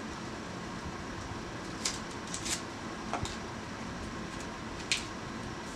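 Plastic packaging of an eyebrow pencil being opened by hand: several separate sharp crackles and clicks over a steady background hum.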